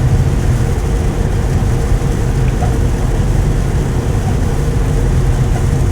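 Tesla Model 3 driving in heavy rain: steady road noise of tyres on the wet road mixed with rain on the car.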